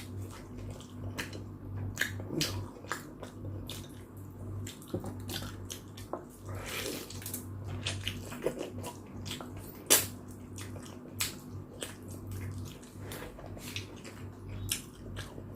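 Close-up wet eating sounds from chicken tinola soup: chewing with frequent sharp lip-smacking clicks. There is a longer slurp of broth about seven seconds in, all over a low steady hum.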